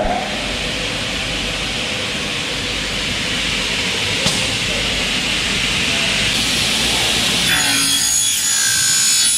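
Double-head aluminium cutting saw's blades cutting through 2.2 mm thick Xingfa aluminium profile: a steady, loud rasping hiss with one click partway through. About seven and a half seconds in the sound changes to a whine of several steady high tones.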